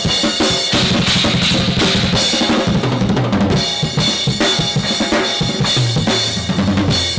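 SJC drum kit played fast and hard: rapid snare and tom strokes over bass drum. Sabian AAX cymbals crash and wash over the drums about a second in.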